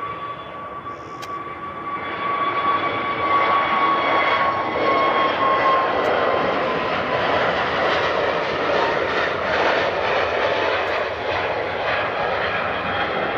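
Airbus A320-family jet's twin turbofan engines at takeoff thrust as the airliner rolls past and lifts off. A dense rush of jet noise grows louder about two seconds in, with a high fan whine that slowly falls in pitch as the aircraft passes.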